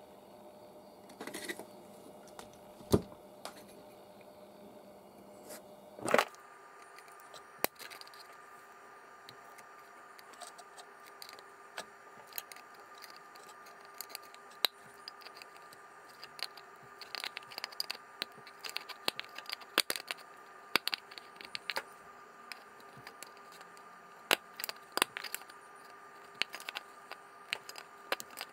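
Thin perforated aluminium spinner head of a homemade cotton candy machine being handled and bent by hand, giving scattered clicks, light crinkles and scrapes of thin sheet metal, more frequent in the second half. A faint steady hum comes in about six seconds in.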